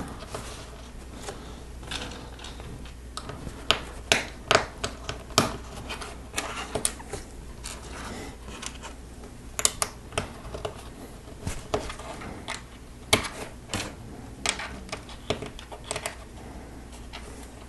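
Lego Technic pieces being handled and snapped together: irregular small plastic clicks and rattles, with a steady low hum underneath.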